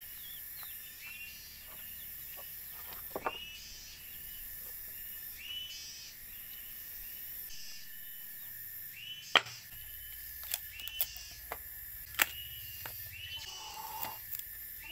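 Outdoor ambience of birds chirping over and over, with a high pulsing insect drone, broken by a few sharp knocks of rough wood pieces being handled, the loudest about nine seconds in.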